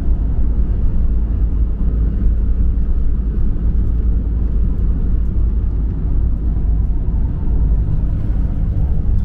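Steady low rumble of a camper van's engine and tyres heard from inside the cab while driving along a highway.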